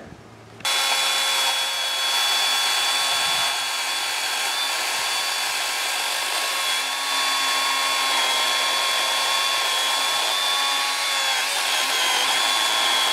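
Greenworks Pro electric chainsaw cutting into a green white pine log: a steady, high motor whine over the hiss of the chain in the wood, starting abruptly about half a second in.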